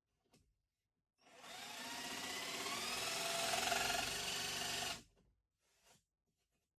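Power drill running once for about four seconds, its pitch rising as it spins up, then stopping suddenly.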